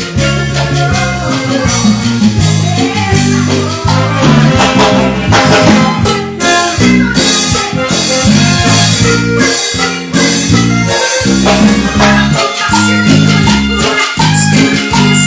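Live band playing an instrumental Latin dance tune, with shakers, drums and bass keeping a steady beat.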